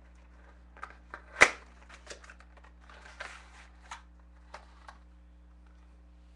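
Cardboard and plastic packaging of a sealed trading-card box being opened and handled by hand: one loud sharp snap about a second and a half in, then rustling and a few light clicks and taps.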